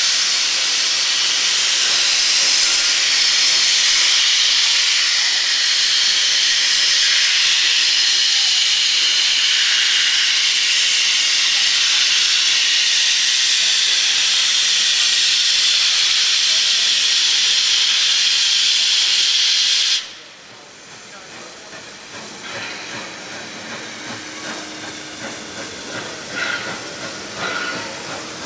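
Steam locomotive 3237, a NSW C32 class 4-6-0, creeping along the platform with its cylinder drain cocks open, giving a loud, steady hiss of escaping steam. About two-thirds of the way through the hiss cuts off suddenly as the cocks are closed, leaving the quieter knocks and clanks of the engine rolling slowly.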